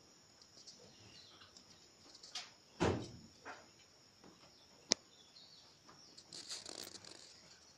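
A few scattered knocks and rustles around wooden, wire-mesh rabbit cages, the loudest about three seconds in and a sharp click near the middle, over a faint, steady, high-pitched background buzz.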